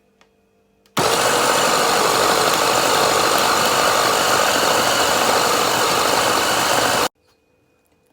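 Electric food processor motor running at full speed with a steady, loud whir. It switches on about a second in and cuts off sharply about six seconds later.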